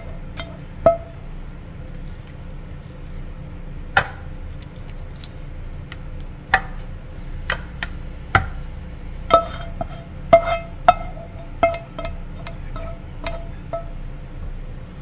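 A spatula knocking and scraping against a metal baking pan while spreading cooked ground beef: about a dozen sharp clinks, each ringing briefly, the loudest about 4 s and 10 s in, over a steady low hum.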